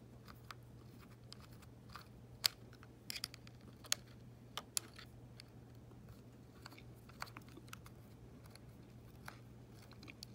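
Scattered small, sharp clicks and ticks from a small screwdriver and plastic screws being worked and handled inside an opened Apple TV, over a faint steady low hum.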